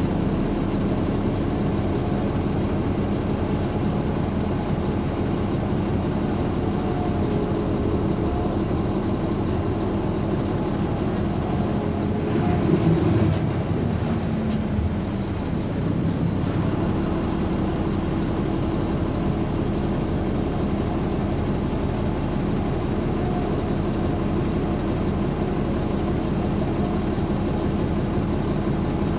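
Caterpillar C13 ACERT diesel engine of a 2009 NABI 416.15 transit bus running steadily under way, driving through a ZF Ecomat six-speed automatic. About twelve seconds in there is a brief louder noise, and just after it the engine note shifts and dips before settling back to a steady drone.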